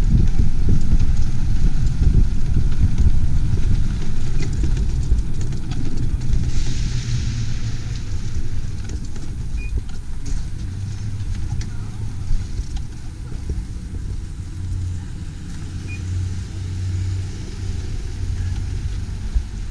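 Steady low rumble of a vehicle on the move, loudest in the first few seconds and then easing off, with a faint engine hum underneath.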